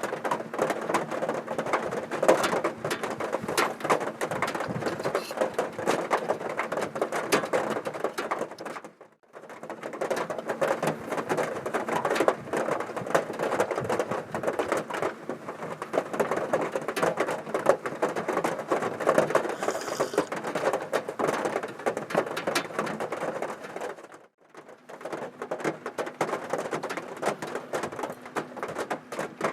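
Heavy typhoon rain pattering on a car's roof and body, heard from inside the cabin as a dense, uneven clatter of drops. It breaks off twice, briefly.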